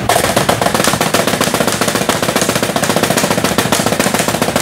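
Drum roll: rapid, even drum strokes held steady, the suspense effect that comes before a winner is announced.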